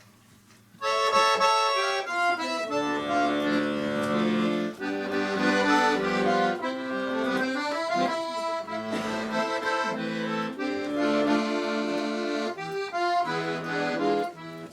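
Instrumental introduction to a slow song: held chords under a moving melody line, starting about a second in after a short pause.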